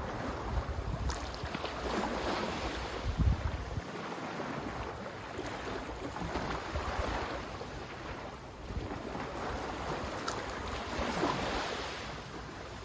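Sea waves washing in, the surf swelling and easing every few seconds, with wind buffeting the microphone as a gusty low rumble.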